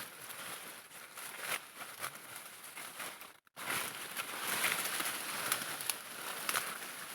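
Faint rustling and crackling of dry corn plants being handled during harvesting, broken by a brief gap about three and a half seconds in.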